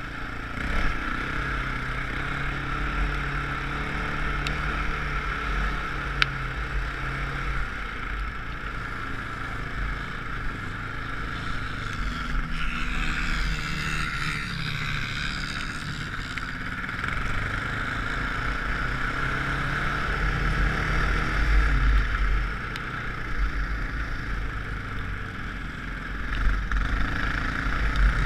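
Dirt bike engine running while riding over sand, its note rising and falling with the throttle, with steady wind and rushing noise over it.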